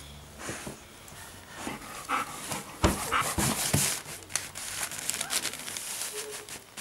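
A dog in labour panting in quick, short breaths, with a few thumps and rustles of handling about three seconds in.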